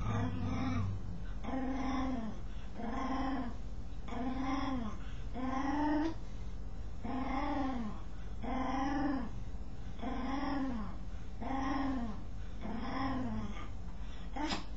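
A dog voicing a rhythmic series of short, pitched groaning calls while it scratches itself. Each call rises and falls in pitch, and they come evenly, a little faster than one a second, as if in time with the scratching strokes.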